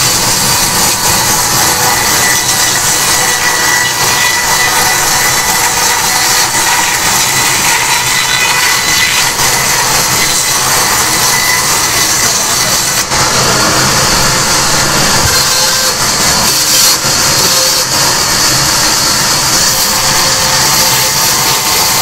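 Sawmill band saw running and cutting lengthwise through a log: a loud, steady noise that barely changes.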